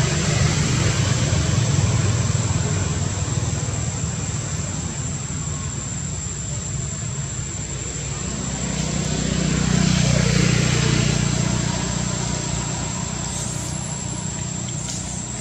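Motor vehicle engine rumbling, growing louder and falling in pitch as it passes about ten seconds in, then fading.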